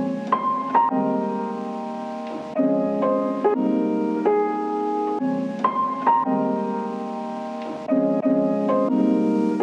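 Instrumental background music: a gentle melody of clear, sustained notes over chords that change about every second.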